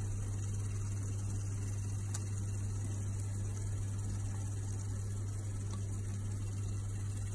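Steady low hum with a faint hiss from running kitchen equipment, an electric salamander grill heating.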